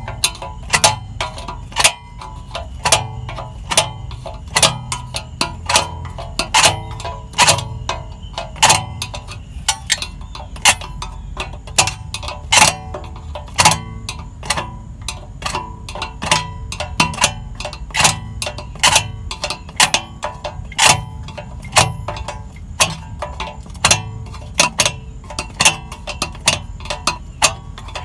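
Star-wheel adjuster of a BMW Z4's rear parking-brake shoes clicking tooth by tooth as a flathead screwdriver turns it, about two to three sharp clicks a second. The adjuster is being backed off to take tension off the shoe springs.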